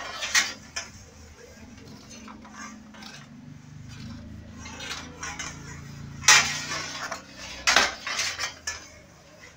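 Metal baking trays clanking and scraping on the floor of a bakery oven as they are pushed in with a long metal pole. There are loud clanks about half a second in, around six seconds in and near eight seconds, with quieter scraping between.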